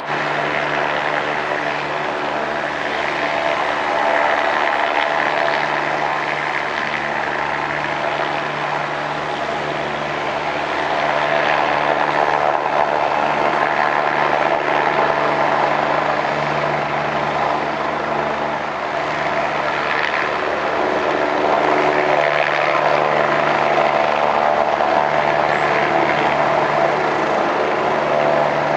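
Helicopter running steadily: an engine and rotor whine with a low hum beneath it, getting somewhat louder in steps over the course of the sound.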